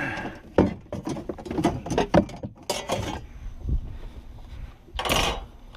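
Knocking and clattering of a landing net and gear against a small aluminum boat as a netted flounder is handled aboard, with a brief rush of noise about five seconds in.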